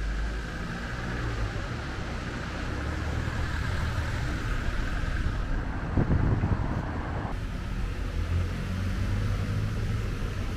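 Road traffic on a town street: a steady hum of vehicles, with one passing loudest about six seconds in.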